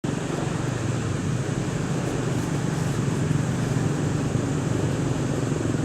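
A steady low rumble of running engine noise.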